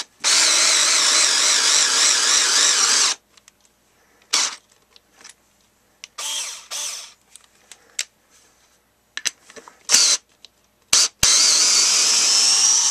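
Genesis 7.2-volt lithium-ion cordless screwdriver motor running in two long runs of about three seconds each, one at the start and one near the end, with short trigger blips and clicks between them.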